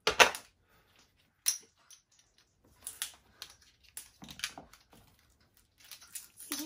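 Roxley Iron Clays game counters, clay-composite poker-style chips, being handled: sharp clicks and clacks of chips against each other, mixed with plastic wrap crinkling as the stacks are opened. The loudest clack comes right at the start, and there is a run of smaller clicks a few seconds in.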